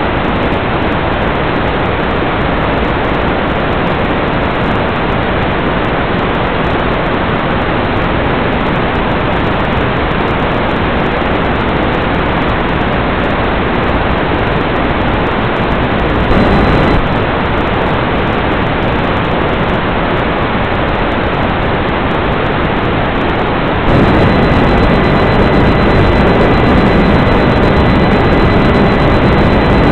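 Steady, loud rushing noise on the audio of an analog FPV video link from a powered RC glider in flight. It gets briefly louder around 16 seconds in, then steps up louder about 24 seconds in, where a faint steady whistle-like tone joins it.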